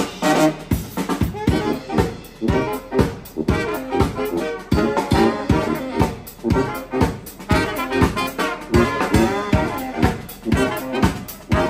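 Live brass band playing with trumpet, saxophones and trombone over a drum kit that keeps a steady beat.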